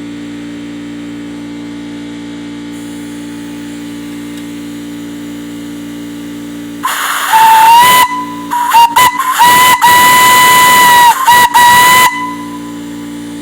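Unmarked whistle blown twice, starting about seven seconds in. It gives a loud single steady note with a rush of hiss that rises slightly in pitch as it opens. A short first blast is followed by a few quick stuttering toots, then a longer second blast.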